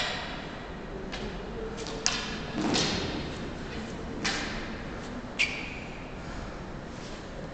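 Canne de combat canes striking during a bout: about six sharp knocks and thuds spread over several seconds, the loudest about two seconds in.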